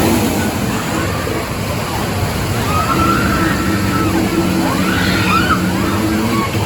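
Amusement-park background: a steady low hum over an even wash of noise, with faint distant voices.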